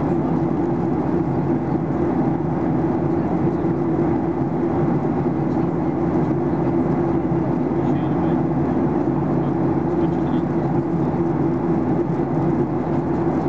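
Steady cabin noise inside a Boeing 737-800 in flight: the rush of air along the fuselage and the hum of its CFM56-7B engines, running evenly without change.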